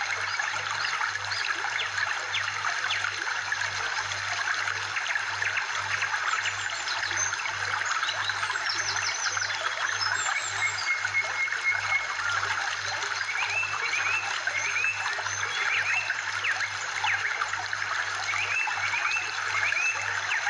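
Steady trickling stream water, with short high chirps scattered over it and a run of quick rising calls in the second half.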